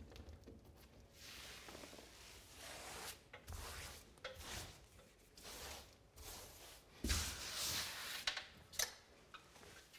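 Soft rustling and swishing of pasted wallpaper being pulled back and smoothed onto the wall by hand, in a series of strokes, with the loudest, longer rustle about seven seconds in and a couple of light taps just after.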